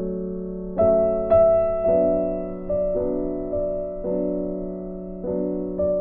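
Background instrumental music: slow piano notes, each struck and then fading, about one a second.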